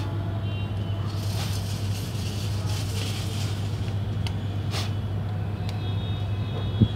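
A steady low mechanical hum throughout, with a few light clicks of metal tongs picking hot hookah coals out of a charcoal burner.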